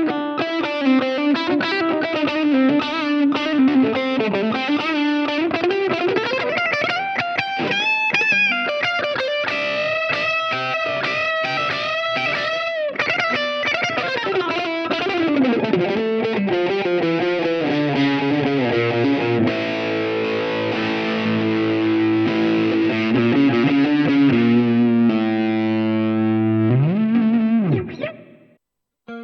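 Ibanez S320 electric guitar played through distortion: quick lead runs with string bends, then held chords ringing out over the second half. Near the end there is a swoop in pitch, and the sound cuts off abruptly.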